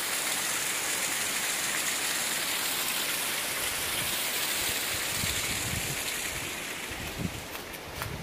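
Steady rush of a fast-flowing, white-water mountain river, easing off somewhat over the last two seconds. Footsteps on the dirt trail thud a few times in the second half.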